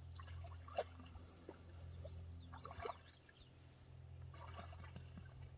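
Water trickling and splashing as a moose feeds in a pond, dipping its muzzle and lifting it, with a few sharp clicks of its teeth grinding as it chews. A steady low hum runs underneath.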